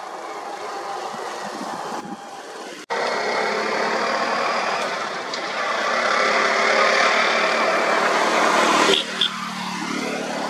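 Tuk-tuk (auto-rickshaw) engine running close by. It jumps louder about three seconds in, swells, and drops suddenly about nine seconds in to a quieter engine hum.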